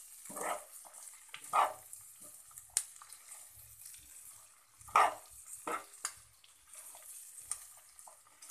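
A spatula stirring and turning chopped cabbage and peas in a nonstick frying pan: irregular scrapes and rustles, the loudest about five seconds in, over a faint steady sizzle.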